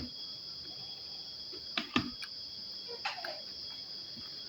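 Crickets trilling steadily, with a few sharp clicks and knocks of eating about two seconds in and again about a second later.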